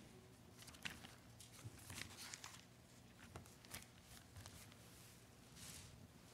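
Near silence broken by faint, scattered rustles and soft ticks of Bible pages being turned while a passage is looked up.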